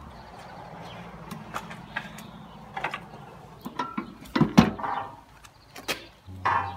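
Metal clicks, knocks and scrapes from a boiler's steel firebox door and its handle latch being worked, with the loudest knocks about four and a half seconds in.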